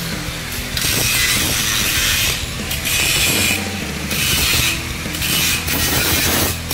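Electric angle grinder with its disc on steel, grinding down fresh welds on folding-gate bars. The hissing grind comes in repeated passes of about a second each, broken by short dips.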